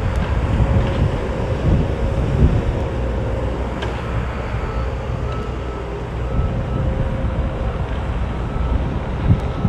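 Cat 304 mini excavator's diesel engine running steadily while the machine swings and works its boom and bucket, with a steady hydraulic whine over the low engine note.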